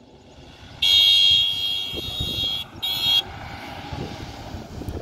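Force Gurkha's engine running under load as it drives up a sandy slope. Over it comes a loud, shrill high-pitched tone that sounds twice, starting and stopping sharply: a long blast of nearly two seconds about a second in, then a short one.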